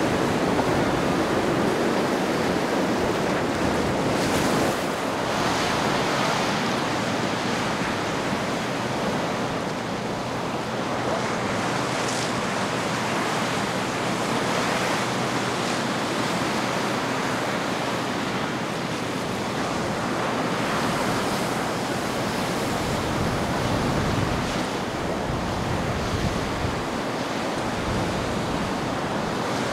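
Ocean waves and surf washing steadily, swelling and easing every few seconds, with wind buffeting the microphone. A faint steady low hum runs underneath.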